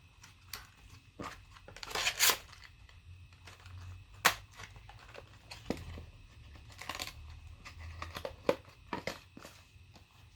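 Plastic and cardboard packaging being handled and cleared away: irregular rustling and crinkling, with several sharp clicks and knocks as pieces are set down, the loudest a click about four seconds in.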